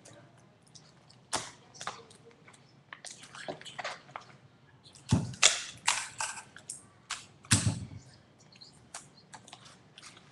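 Paper and sticky tape being handled and pressed while a paper model is assembled: irregular crinkling, crackling and clicks, with two louder knocks about five and seven and a half seconds in.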